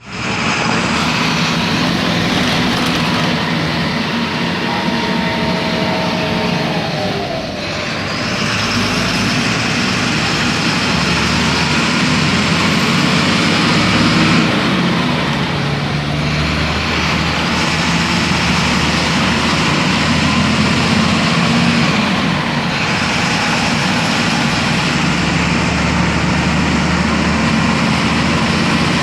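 Volksbus 17.230 EOD bus running under way: a steady diesel engine drone with a whine that glides in pitch. The sound dips and changes three times, about 8, 15 and 22 seconds in.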